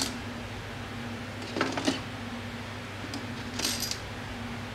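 Small metal hand tools and parts clinking against a metal workbench: a short clatter about one and a half seconds in and another about three and a half seconds in, over a steady low hum.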